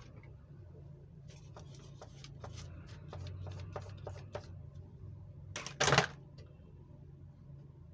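Crayons clicking and tapping as they are handled in a plastic art-set tray and scribbled on paper. About six seconds in comes a brief loud swish, a hand sweeping across the sheet of paper.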